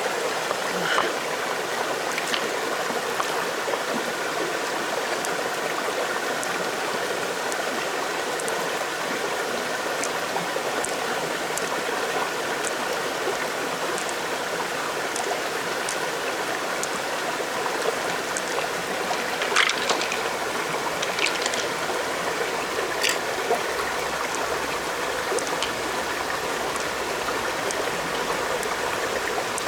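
Shallow stream water running steadily, with a few scattered sharp clicks over it.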